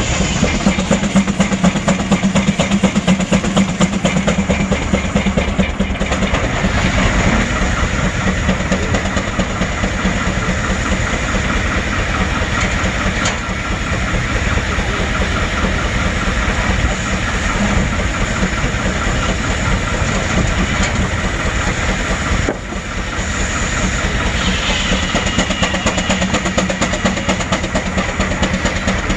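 Advance-Rumely steam traction engine running a belted sawmill, with a rapid, even exhaust beat.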